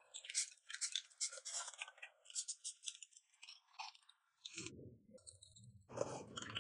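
Faint eating sounds: chewing, with many small crisp clicks of mouth and utensils, then a lower, fuller sound from about four and a half seconds in.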